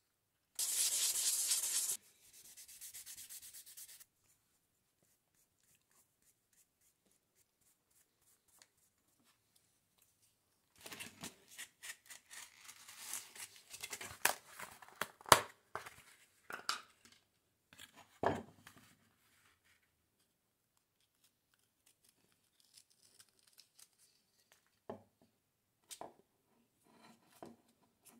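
The wooden handle of an old hand drill is scrubbed against an abrasive pad on sandpaper: a loud scrub for just over a second, then a softer one for about two seconds. After a pause, a stiff cardboard sheet is handled with rustling and sharp clicks for several seconds, followed by a few light taps near the end.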